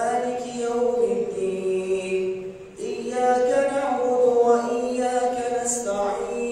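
A man reciting the Quran in Arabic in a melodic, drawn-out style, as the imam leading taraweh prayer. He holds long notes, with short breaks just before three seconds in and again near the end.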